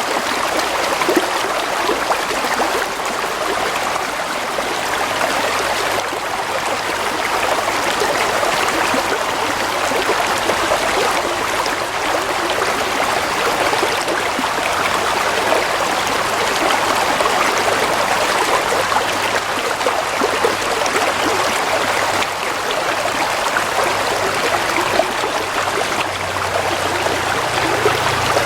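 Water flowing in a stream, a steady, even rushing and trickling.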